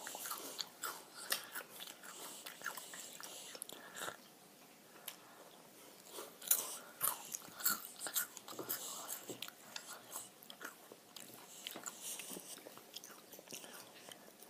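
Close-up eating sounds: noodles being slurped and chewed, with scattered small clicks from chopsticks and a fork.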